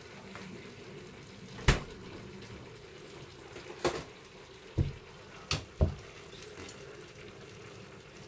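Five sharp knocks and clinks of cookware or utensils within about four seconds, the first and last the loudest, over a faint steady background.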